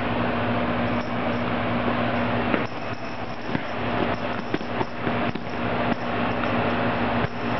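A steady mechanical hum and hiss in the room, with scattered light clicks and rustles as a cat swats at a furry toy on a leather couch.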